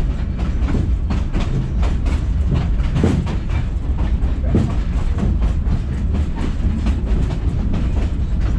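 Narrow-gauge railroad passenger coach rolling along the track, heard from inside the car: a steady low rumble with frequent clicks and rattles from the wheels and the car's fittings.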